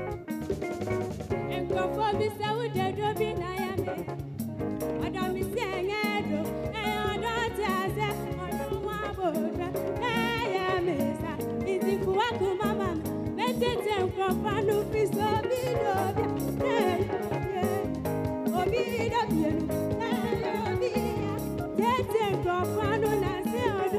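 A young girl singing into a handheld microphone over instrumental accompaniment, her voice wavering in pitch on held notes; the singing comes in about two seconds in.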